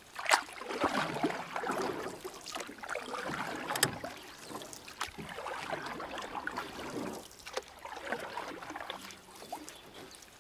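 Water sounds, like small waves or a trickle, swelling and fading unevenly, with a few sharp clicks.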